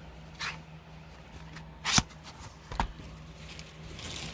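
Plastic Blu-ray cases being handled: a few sharp clicks, the loudest about two seconds in, then soft rustling near the end, over a steady low hum.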